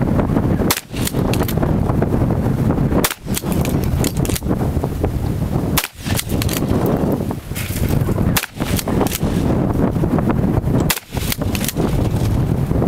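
Winchester Model 12 pump-action 12-gauge shotgun fired five times, about two and a half seconds apart, blasting a CRT monitor. Wind rumbles on the microphone between the shots.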